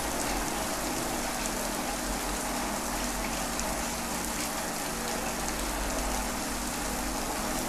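Thin ragi (finger millet) dosa batter sizzling steadily on a hot nonstick tawa, an even, rain-like crackling hiss.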